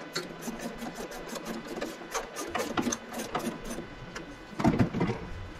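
Hand-tool work on a go-kart's steel chassis: bursts of rapid clicking as a fastening is worked, with a louder clatter about four and a half seconds in.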